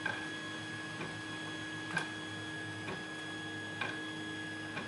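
Faint, sharp clicks of a lock pick working the pin stacks of a lock, about one a second, over a steady electrical hum.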